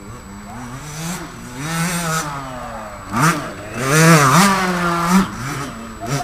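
Small KTM two-stroke youth motocross bike ridden over dirt jumps, its engine revving up and down with the throttle; it is loudest from about three to five seconds in.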